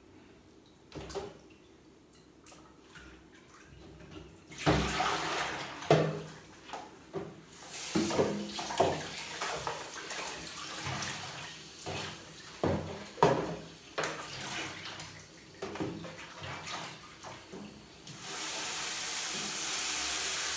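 Kitchen tap running into a sink and plastic basin while leafy greens are washed by hand, with splashing and knocks of the basin and hands against the stainless steel pot and sink. The water starts about four seconds in, and near the end the tap runs steadily.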